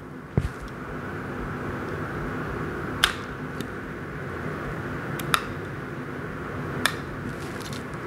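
Scissors snipping the loose thread ends of a seed-bead bracelet: a handful of short, sharp snips spaced a second or two apart over a steady background hum.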